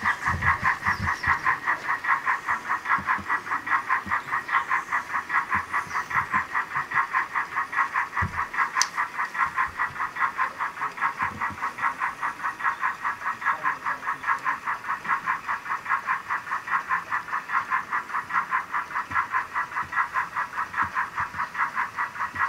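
OO gauge model steam locomotive with sound, chuffing steadily at about four beats a second as it hauls a train of mineral wagons at an even speed.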